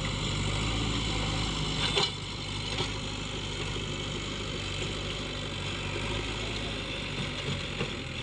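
JCB 3DX backhoe loader's diesel engine running steadily, with a sharp knock about two seconds in and a lighter one soon after.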